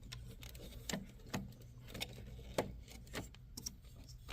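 Scattered light clicks and knocks from the right-hand key block of a Yamaha Clavinova CLP-130 digital piano as it is pulled back and lifted out of the case.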